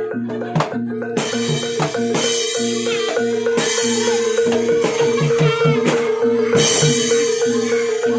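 Javanese gamelan accompaniment for barongan dance. Drums and mallet-struck metallophones play over a steady held tone, with several bright crashes.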